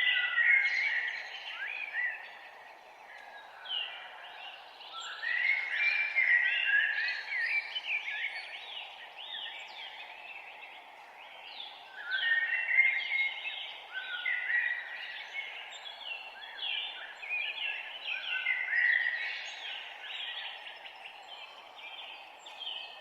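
Songbirds singing in outdoor morning ambience: rapid song phrases of a few seconds each, the loudest starting about five, twelve and eighteen seconds in, over a steady low hiss of background noise.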